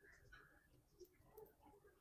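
Near silence: quiet room tone with a few faint ticks.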